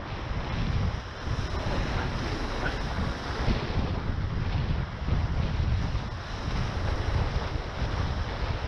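Wind buffeting the microphone in uneven gusts over water rushing and spraying past the hulls of a Tornado catamaran sailing fast downwind at about 20 mph.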